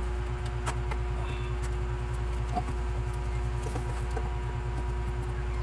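A few short, faint squeaks from a newborn Shih Tzu puppy over a steady low machine hum.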